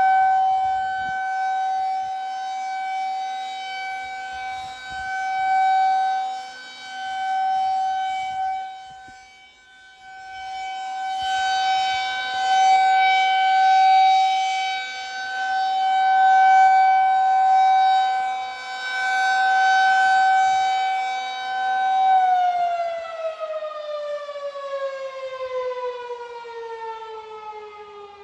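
Federal Signal 2001-SRNB rotating tornado siren holding a steady wail during its weekly test, swelling and fading in loudness as its head turns. About three quarters of the way in it is switched off and the tone glides down in pitch as the siren winds down. It is heard from inside a car.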